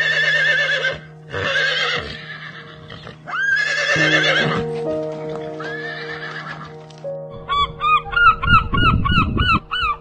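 A horse neighing: four long, quavering whinnies over steady background music. In the last few seconds a run of short repeated calls comes, about three a second.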